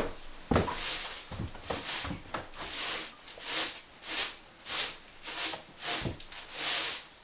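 Straw broom sweeping wood shavings on wooden boards in brisk, regular strokes, a short swish roughly every half second or so, after a single knock about half a second in.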